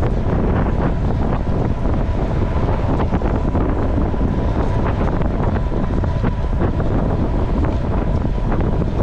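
Heavy wind buffeting the microphone of a camera carried on a fast-moving gravel bike ride, with scattered sharp clicks and rattles throughout.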